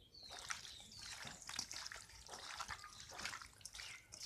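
A hand squishing and turning raw, spice-coated chicken pieces in a stainless steel bowl, making irregular wet squelching and rustling.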